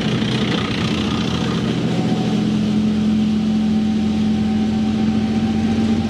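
Military tank engines running steadily as a column of tanks drives along, a deep drone that holds one pitch throughout.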